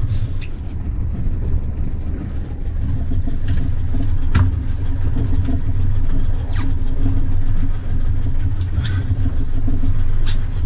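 An engine running steadily with a low rumble and a steady hum, with a few short clicks over it.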